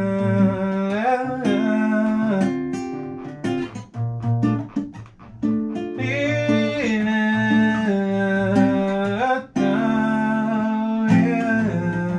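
Acoustic guitar strummed under a man singing a melody in long held notes that slide from pitch to pitch, a guide vocal for a new song, with two short breaks in the singing near the middle.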